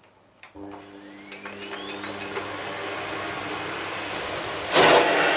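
Vacuum cleaner switched on with a click, its motor spinning up with a whine that rises in pitch and levels off, over a steady hum. Near the end the rushing of the suction gets suddenly louder.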